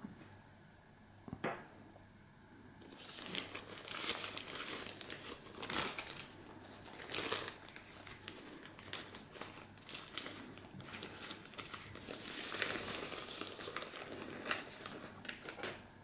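White paper wrapping crinkling and rustling as it is pulled open by hand from around a camera body, in repeated bursts starting about three seconds in. A single short click comes before the crinkling starts.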